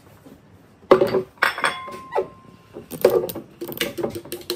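A glass jar clinks sharply about a second in, with a brief ringing tone, then a quick run of knocks and clatter as chopped vegetables are shaken out of it into a plastic blender jug.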